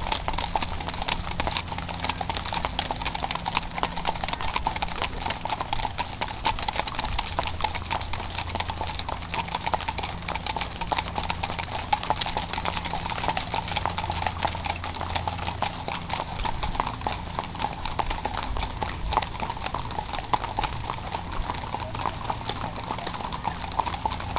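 Many horses' hooves clip-clopping on a wet paved street as a group of riders moves along at a walk: a dense, irregular clatter of hoofbeats.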